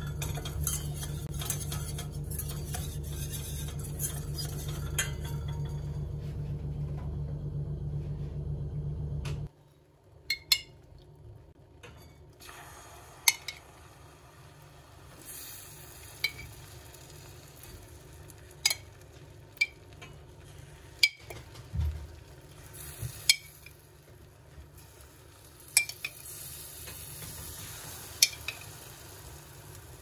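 Cooking in a pan: a utensil clinking and scraping against the pan at irregular intervals over a faint sizzle of frying food. For about the first third a steady low hum runs under the clinks, then cuts off abruptly.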